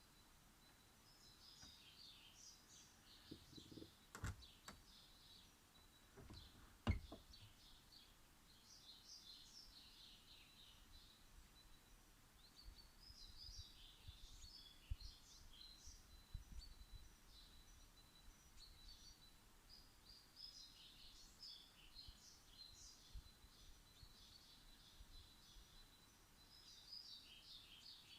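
Small garden birds chirping and twittering faintly in repeated bursts of short high notes. Two soft knocks come about four and seven seconds in.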